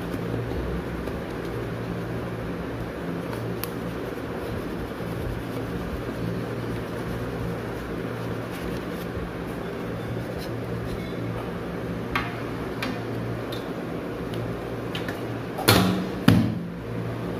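Knife run around the inside edges of a metal loaf tin, with a few light clicks and scrapes, over a steady low hum. Near the end, two loud knocks about half a second apart as the tin is turned upside down and rapped onto a steel plate to release the baked loaf.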